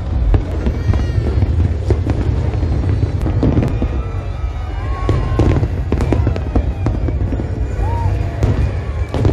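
Aerial fireworks display: shells bursting in quick succession, many sharp bangs and crackles over a continuous low rumble, with music underneath.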